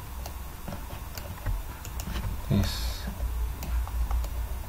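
Computer mouse and keyboard clicks, scattered and irregular, as edges are selected one by one in Blender, over a low steady hum.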